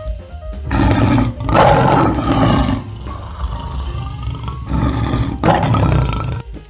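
A large animal roaring twice, two long calls a couple of seconds apart, the first the louder.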